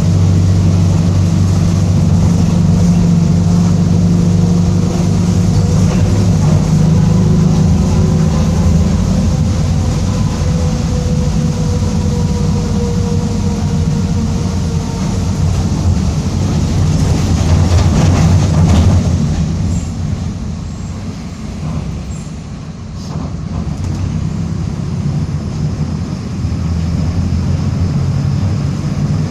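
Mercedes-Benz OF-1722M city bus under way, its diesel engine droning with a thin whine from the differential above it; the whine is the sign of a growling differential. The sound swells, drops away about twenty seconds in, then builds again as the bus pulls.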